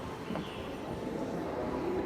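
Steady indoor ambience of a museum gallery: a low, even background noise with no distinct events.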